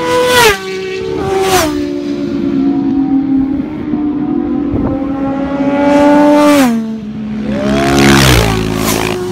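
Several petrol motorcycles pass at high revs one after another, each engine note dropping in pitch as it goes by.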